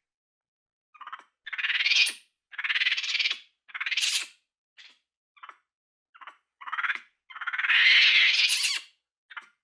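Capuchin monkey calling: a run of about ten high, raspy squeals and short chirps with brief gaps between them, the longest and loudest call about eight seconds in.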